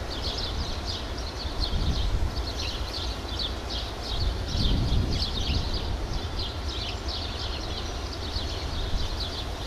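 Small birds chirping over and over in quick, high, falling notes, over a steady low rumble that swells a little about halfway through.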